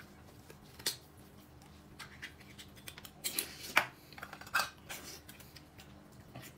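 Faint, scattered clicks and scrapes of small objects being handled: a handful of short, sharp sounds about a second apart, the sharpest nearly four seconds in.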